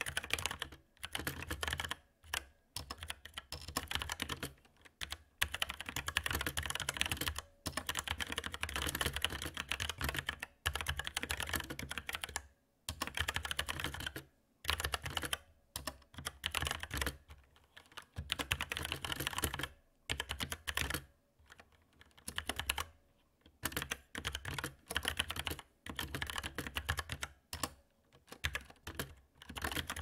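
Typing on a Velocifire TKL02WS wireless mechanical keyboard with Outemu Brown tactile switches: quick runs of keystrokes broken by short pauses.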